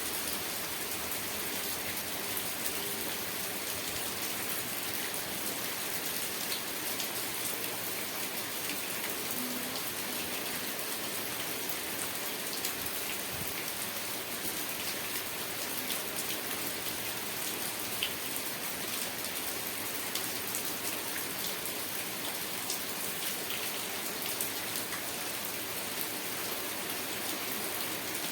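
Steady rain falling, with many individual drops ticking on a hard surface.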